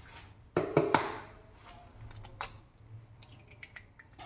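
A short clatter of kitchenware about half a second in, then scattered light clicks and taps of handling.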